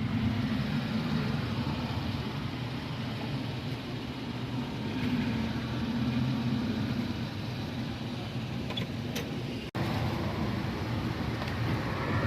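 A car engine idling steadily, a low hum with a broad outdoor background. The sound drops out for an instant about ten seconds in.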